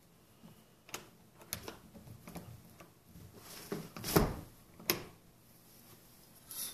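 A few scattered light clicks and knocks over quiet room tone, with one duller thump about four seconds in.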